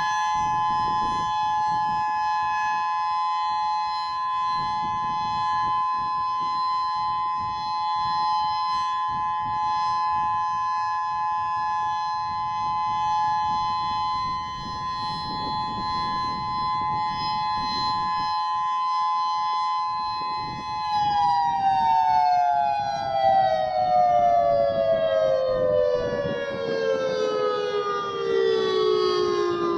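Federal Signal Modulator 8032B electronic outdoor warning siren sounding its steady two-note Full Alert tone, then, about two-thirds of the way through, gliding smoothly down in pitch as the alert winds down.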